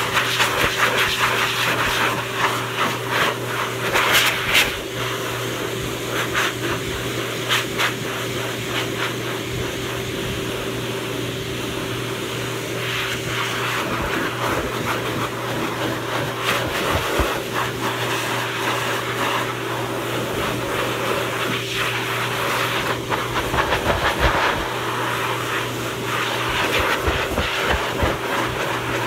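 Hose-fed pet grooming force dryer blowing air over a wet dog's coat: a steady rushing hiss over a constant motor hum, swelling briefly now and then as the nozzle swings.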